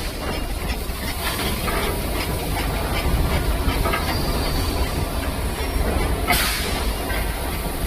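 Hot forging line machinery running: a steady low rumble with scattered knocks, and a short hiss about six seconds in.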